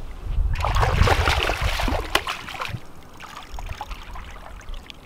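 A hooked largemouth bass thrashing and splashing at the water's surface beside the boat, loudest over the first couple of seconds and then dying down.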